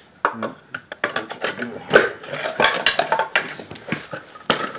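Irregular metal clinks and knocks of tools and steel transmission parts being worked and handled, with a sharper knock near the end.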